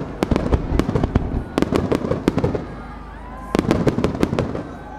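Fireworks display: aerial shells bursting in rapid volleys of sharp bangs and crackles, easing off about halfway through before a second flurry.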